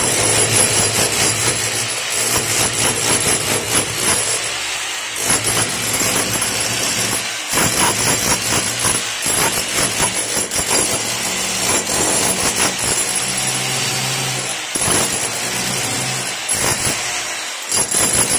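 Handheld electric wall cutter running with its blade grinding a groove into brick, a loud steady cutting noise that dips briefly several times as the blade is eased off and pressed back into the wall.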